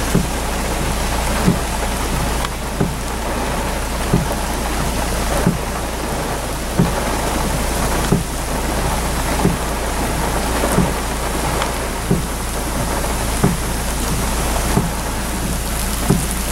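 Heavy downpour of rain falling steadily, a dense hiss. A short low thump repeats evenly about every 1.3 seconds.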